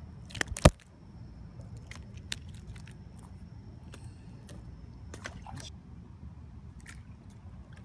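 Handling noise while a small bluegill is unhooked and released: two sharp knocks under a second in, then faint scattered clicks, over a steady low rumble.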